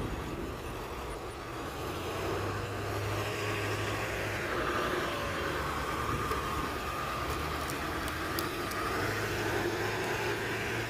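Road traffic: a motor vehicle passing by, its noise building from about two seconds in and holding steady.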